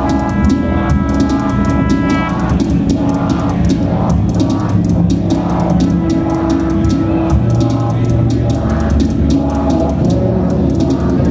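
Live-coded electronic music: a sequenced drum pattern, driven from C++ MIDI code, with fast, even hi-hat ticks over a steady low drone. A long held note sounds over it for the first two seconds or so.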